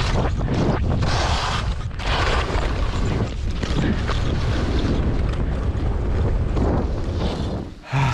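Wind buffeting an action camera's microphone during a fast ski descent, a heavy steady rumble, with the hiss of skis on snow swelling and fading with the turns. The noise drops away sharply near the end.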